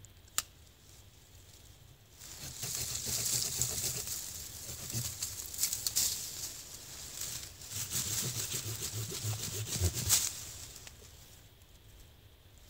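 Knife blade scraping and shaving a wooden stick, in two long spells of quick scratchy strokes with a short break between them. There is a single sharp click about half a second in.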